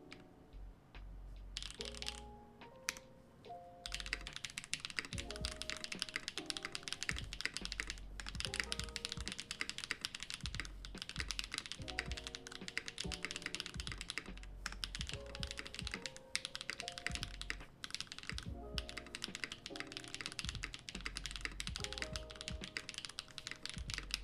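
Typing on a Loki65 custom mechanical keyboard with Gateron Quinn tactile switches in an aluminium case: a rapid run of keystrokes, a brief burst about a second and a half in, then steady typing from about four seconds with a few short pauses. Soft background music plays underneath.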